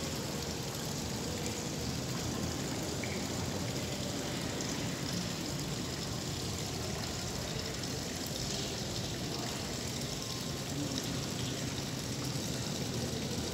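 Small decorative waterfall in a nativity scene, trickling and splashing steadily into its pool.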